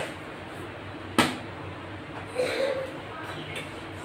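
A single sharp knock about a second in, then a brief clatter with a short ringing tone, like things being handled and set down in a kitchen.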